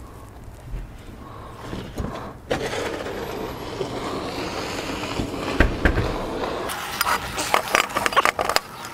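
A steady rushing, rolling noise from about two and a half seconds in until near seven seconds, then a quick run of sharp metal clicks and clinks as a screwdriver drives a small screw into the pump's metal volute.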